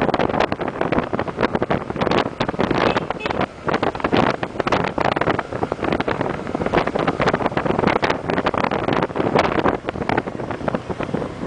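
Heavy wind buffeting the microphone, loud and fluttering unevenly, as from a moving vehicle.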